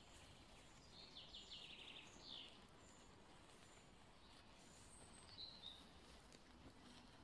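Near silence: faint woodland background with a few distant songbird calls, a short rapid trill about a second in and another brief call about five seconds in.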